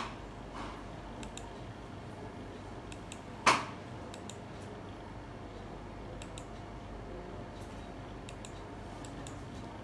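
Faint, irregular clicking of computer keys over a steady room hum, broken by two sharp knocks, one at the very start and one about three and a half seconds in.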